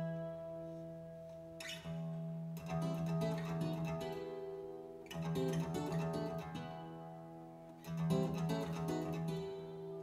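Instrumental music led by plucked acoustic guitar, played over a home stereo: a new chord is picked every two or three seconds and each is left to ring.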